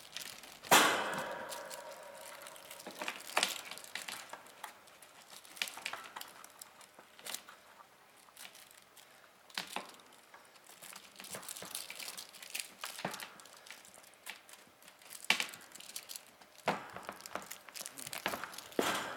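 Kittens at play: scattered knocks, taps and clicks as they scrabble, pounce and bat things about, with a louder knock about a second in and a few more late on.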